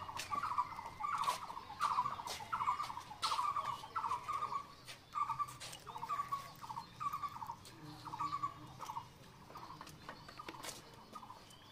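An animal calling over and over: short, slightly falling calls about twice a second, fading away about nine seconds in.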